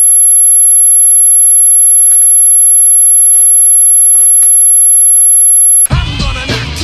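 Loud, steady, high-pitched electronic tone, like a test-tone beep, that cuts off suddenly near the end as hip-hop music starts.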